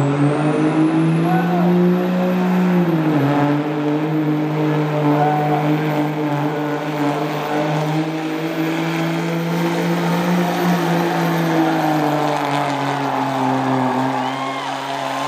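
Dodge Ram heavy-duty pickup's diesel engine pulling a weight-transfer sled at full load. Its pitch climbs for the first couple of seconds, dips about three seconds in, then holds steady, with a high steady whistle running over it throughout.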